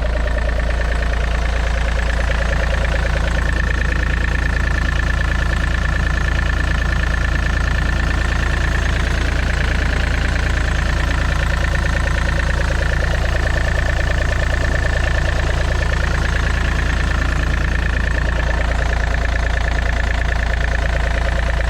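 Yanmar C30R's diesel engine running steadily at constant speed, with a steady whine over the low engine note, left running after the blown fuse on the pump circuit was dealt with to see whether the fault returns.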